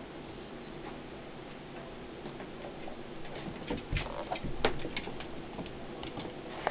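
Quiet for the first half, then a flurry of light clicks and taps about halfway in as a cat pounces on a mouse on a hard floor: paws and claws scrabbling on the floor.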